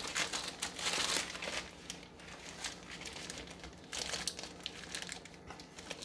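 Plastic bag of frozen mixed vegetables crinkling as hands handle it and fold it closed, with a burst of crinkling in the first second or so and another about four seconds in.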